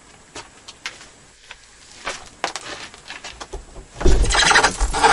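Small knocks and rustles, then about four seconds in loud rustling of clothing with low thuds as a person gets up and moves past close to the microphone.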